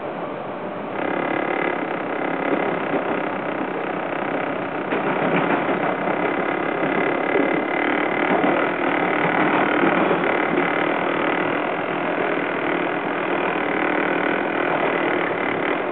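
Toronto subway train running along the track: a steady rumble of wheels on rail with a whine of several steady tones that sets in about a second in, growing louder through the middle.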